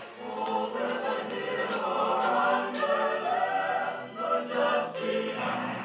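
Choral music: a choir of many voices singing sustained notes together.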